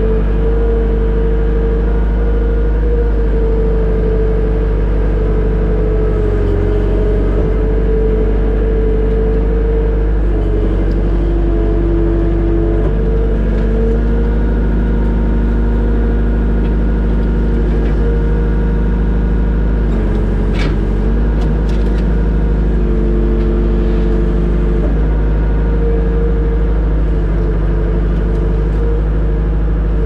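Skid steer engine running steadily under working load, heard from inside the cab, with a steady whine that dips and rises in pitch now and then as the bucket works. A few sharp cracks about two-thirds of the way through.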